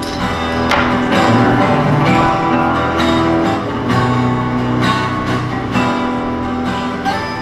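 Instrumental music with plucked and strummed guitar over held low notes.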